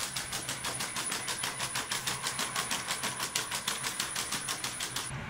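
Unitree quadruped robot dog walking on a hard floor. Its leg motors give a steady high-pitched whine over a rapid, even ticking of about eight ticks a second as it steps. The whine cuts off about five seconds in.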